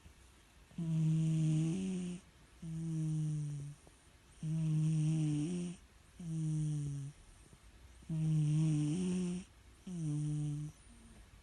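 Ginger cat snoring in deep sleep: three breaths, each a longer droning snore that steps up in pitch at its end, followed by a shorter one.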